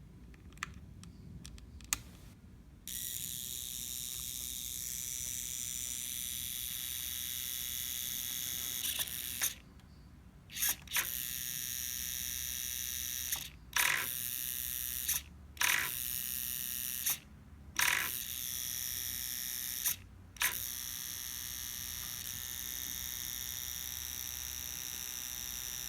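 HPI SF-20 radio-control servo making an abnormal noise: after a few clicks it starts a steady high mechanical whine with gear chatter, which cuts out and starts again about six times, each change marked by a sharp click.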